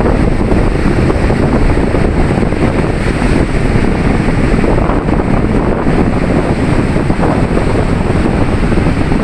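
Sea waves washing onto a beach in a steady rush, with wind buffeting the microphone.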